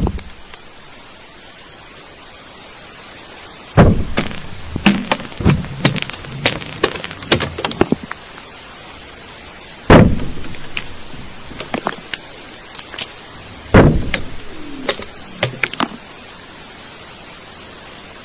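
Heavy dull thuds, three of them several seconds apart, each followed by a scatter of lighter knocks and clicks, over a steady hiss. The recording is presented as underground tunnel-digging work, which the uploader also suggests may be a compressor pumping water out underground.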